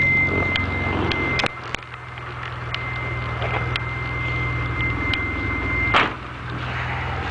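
3000GT VR4 V6 engine idling steadily, with scattered sharp ticks and a steady high-pitched whine that stops right after a louder click about six seconds in. The owner suspects the ticking is lifter tick.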